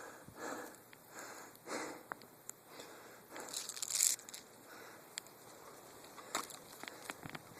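Footsteps crunching and rustling through dry leaves and brush, uneven steps with the loudest crunch about four seconds in, then a few sharp clicks.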